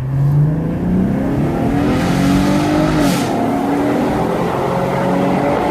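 A Chevrolet Camaro's 3.6-litre V6 accelerating hard through its 8-speed automatic, revs climbing steadily. About three seconds in, the engine upshifts with a short pop and a drop in pitch, then the revs climb again.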